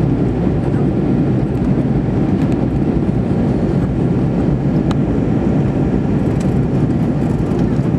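Airbus A320 cabin noise in flight: the steady low rumble of the engines and rushing airflow, heard from a seat over the wing.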